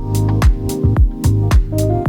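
Background music with a steady kick-drum beat, about two beats a second, over held tones.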